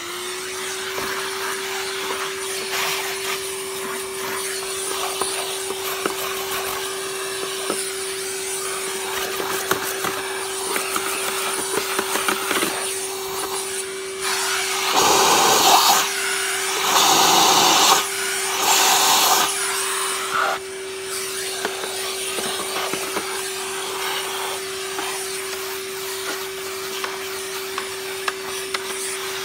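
Vacuum cleaner running with a steady motor whine and rush of air as it sucks out the inside of a canister vacuum's body. About halfway through, three louder rushes of air come a second or two apart.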